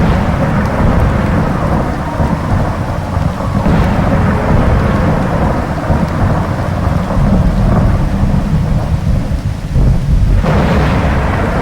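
Loud, steady rumbling noise with a rain-like hiss over it, starting abruptly and dipping briefly about ten seconds in.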